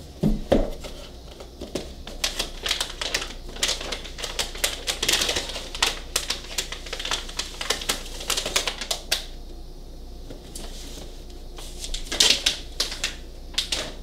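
Crinkling and crackling of a motherboard's plastic anti-static bag and rustling of its cardboard box as they are handled, a dense run of small sharp clicks. It eases off for a couple of seconds a little past halfway, then resumes.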